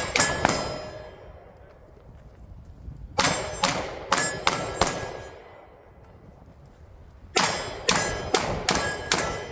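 Pistol shots fired in quick strings, with hits ringing steel targets: a couple of shots right at the start, five about three seconds in, and five more near the end.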